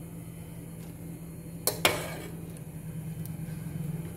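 Metal ladle knocking twice against a metal pot, close together, about halfway through, as blanched cauliflower florets are scooped out of the water. A steady low hum runs underneath.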